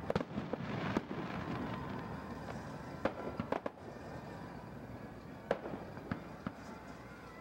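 Aerial fireworks shells bursting: a series of sharp bangs at irregular intervals, several in the first second and more about three, three and a half, five and a half and six seconds in.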